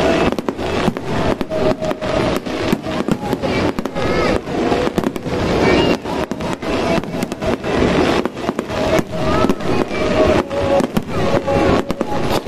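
Aerial firework shells bursting in a dense, rapid barrage of bangs and crackles during a fireworks finale, with no break in the explosions.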